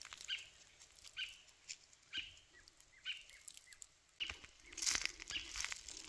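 Footsteps crunching on dry leaves and a dirt trail, about one step a second, with a few short high bird chirps. About four seconds in, the crunching and rustling of dry leaves gets louder and denser.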